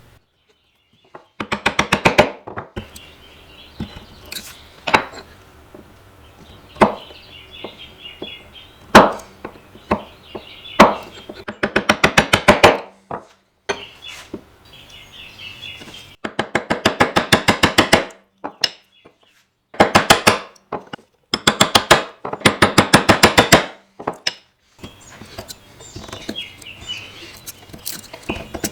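Rapid runs of sharp tapping on wood, about a dozen taps a second, broken by single harder knocks and short pauses.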